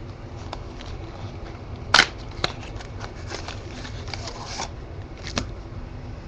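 Cardboard trading-card hobby box being opened and its foil-wrapped packs taken out and set on the table: a sharp snap about two seconds in, then a lighter click, rustling and scraping of card and foil packaging, and another click near the end.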